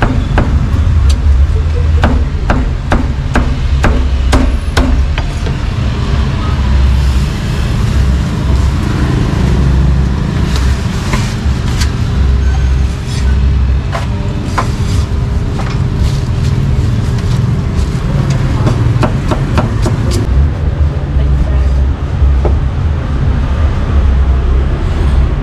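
Cleaver chopping pork on a wooden block: runs of sharp knocks, densest in the first few seconds and again in the middle. Under it runs a steady low rumble.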